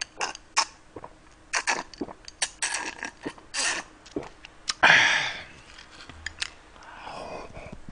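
Close-up eating sounds: slurping and chewing chunks of watermelon hwachae (watermelon in cider with ice), with many small clicks and clinks, and a loud breathy burst about five seconds in.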